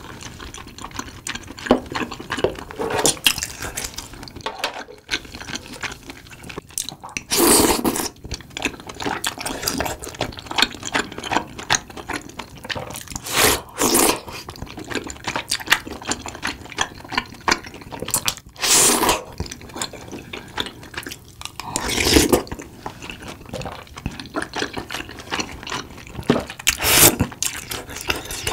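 Close-miked eating of soup tteokbokki: about five loud, wet slurps of sauce-coated rice cakes, with chewing and small wet mouth clicks in between.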